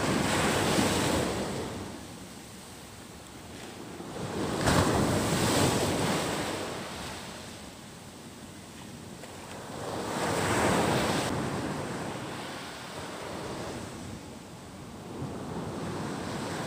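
Surf breaking on a shore, four swells rising and fading about every five seconds, with wind buffeting the microphone.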